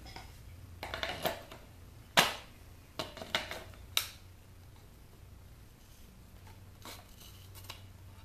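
Scattered sharp metallic clicks and clinks of pliers gripping and working a steel piece out of a hot water maker, with quiet gaps between; the sharpest about two seconds in and another about four seconds in.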